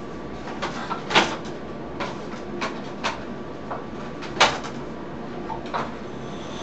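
Irregular sharp clicks and knocks, about nine in all, two of them much louder than the rest, over a steady background hiss.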